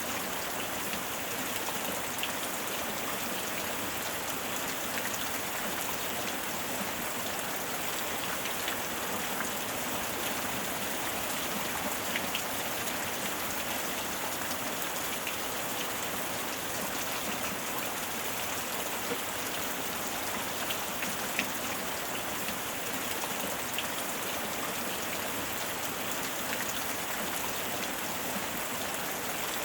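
Steady heavy rain falling, an even hiss of rain with scattered individual drops ticking on a surface.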